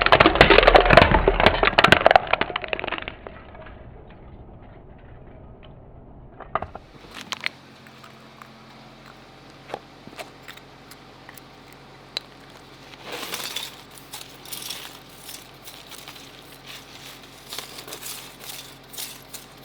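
A loud, dense passage ends about three seconds in. Then faint scattered clicks and crackles play over a steady low hum, with louder bursts of crackling about 13 and 17 seconds in.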